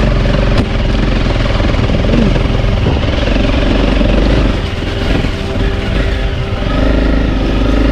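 Motorcycle engine running while riding, under a steady rushing noise; the level drops a little for a couple of seconds past halfway.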